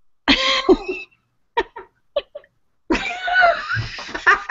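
Hearty laughter: a loud cough-like burst about a third of a second in, a few short breathy chuckles, then sustained laughing from about three seconds in.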